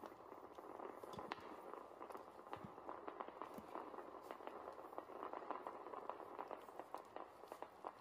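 A litter of young puppies lapping and chewing raw food from a steel bowl: many quick, irregular wet clicks and smacks over a steady low rustle.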